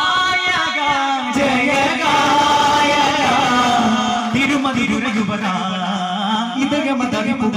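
A men's group singing a devotional chant in chorus, with the dull strokes of daf frame drums keeping time, the beats thickest in the first second and again from about halfway through.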